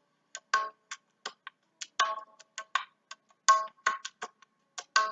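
Soft background music of short, quick pitched notes, about three or four a second and irregularly spaced, with brief silences between them.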